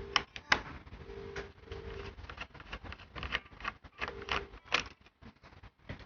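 Small parts of an HP ProBook 4710s laptop being handled during disassembly: a run of light plastic and metal clicks and taps, with a few short squeaks.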